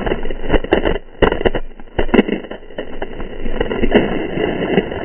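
Water splashing and spray slapping against a boom-mounted GoPro as a windsurf board planes through chop: a rushing wash broken by many irregular slaps. The sound is muffled, as through the camera's waterproof housing.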